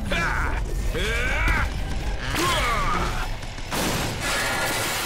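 Cartoon battle sound effects: electric zaps with sweeping rising and falling pitch and the mechanical whirring of a giant tentacled robot over a low rumble, with a crash a little under four seconds in, all under action music.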